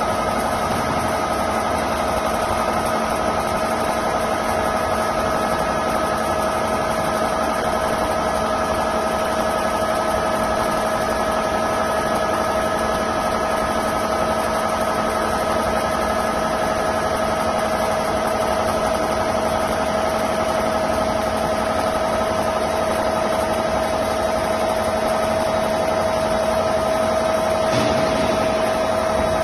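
CNC lathe running, its chuck spinning a steel bar against the tool, with a steady machine whine of a few constant tones over a running hum.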